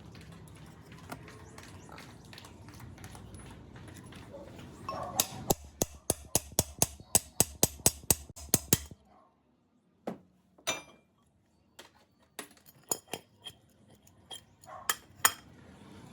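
Sharp metallic taps and clinks of tools on metal parts: a low steady hum for the first few seconds, then a quick run of taps at about four a second for three or four seconds. The hum then stops and a few scattered clinks and taps follow.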